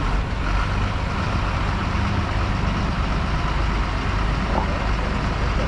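Diesel engine of a bus running at low speed as it moves round a tight hairpin bend: a steady low rumble.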